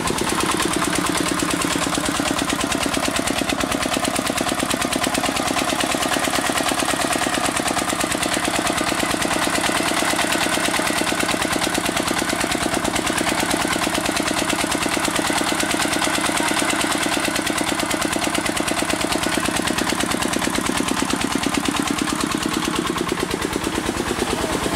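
Peter 25 hp diesel engine running steadily with an even, rapid firing beat, belt-driving a 7-8 inch irrigation water pump under load.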